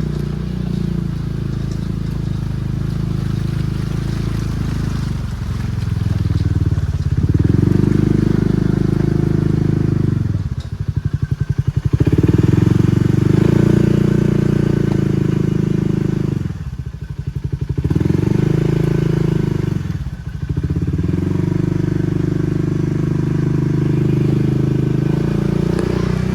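Ranger side-by-side UTV engine running as it drives, rising and easing off several times. Three times it drops into a rapid, evenly spaced pulsing before picking up again. The driver believes the Ranger's rear axle has broken, from a popping, whopping noise at the back.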